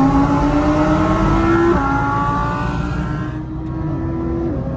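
BMW 340i's turbocharged B58 straight-six pulling hard from inside the cabin. The revs climb and drop back with quick upshifts at the start and just under two seconds in. About three and a half seconds in the throttle eases off and the engine note settles.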